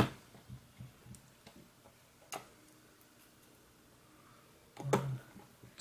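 A few light clicks and taps as small laptop screws are handled and set into the base, the sharpest about two seconds in.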